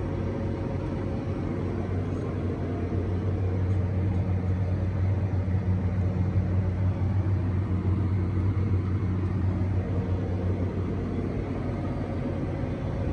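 John Deere tractor engine running steadily with an even, low hum.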